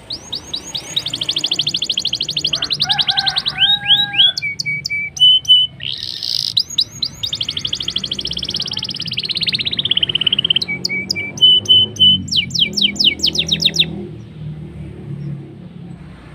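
Black-throated canary singing a long, loud song of fast rolling trills, short buzzy notes and rapid high repeated notes, the kind of song used as a lure to set other canaries singing. The song stops about two seconds before the end.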